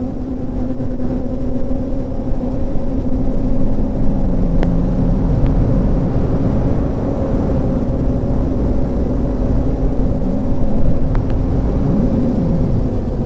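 DJI F450 quadcopter's four brushless motors and propellers whining steadily in flight, with lower tones that waver up and down as the motors change speed. Wind rush buffets the recorder mounted on the airframe.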